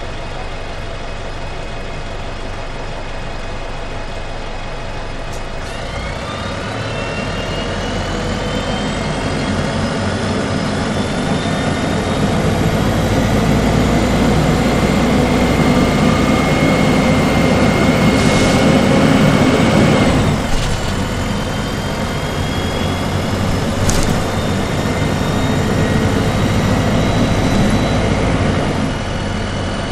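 1995 Gillig Phantom transit bus's Detroit Diesel Series 50 four-cylinder diesel idling, then pulling away under load through its three-speed Voith automatic transmission, with a whine that rises in pitch as the bus speeds up. The engine note dips sharply about twenty seconds in at a gear change, then eases off near the end.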